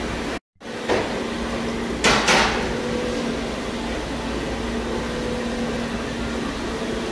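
Restaurant room tone: a steady machine hum from ventilation or appliances. The sound cuts out for a moment about half a second in, and there are two sharp knocks, like tableware, about two seconds in.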